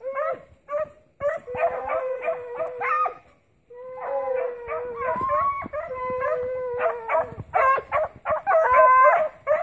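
A pack of hunting dogs baying on a rabbit's trail, with long drawn-out howls mixed with short yelps, the voices at times overlapping.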